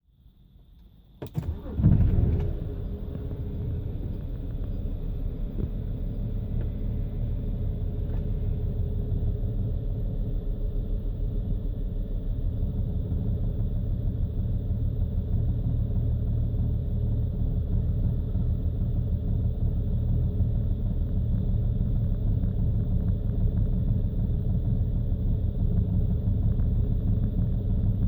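BMW engine cold-started, catching about two seconds in with a brief rise in revs, then idling roughly with an uneven, stumbling rhythm. The owner puts the rough cold idle down to faulty fuel injectors.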